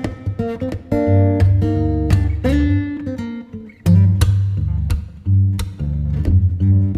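Background music led by a plucked acoustic guitar, with sharply attacked notes over a steady bass line.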